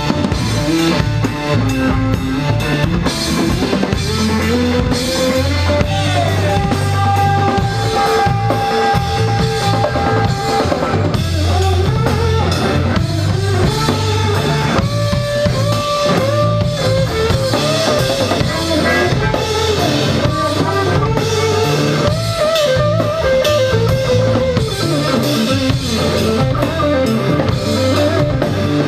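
Live band playing electric guitar, bass guitar and drum kit. A lead line of long held notes bends and slides in pitch over the drums.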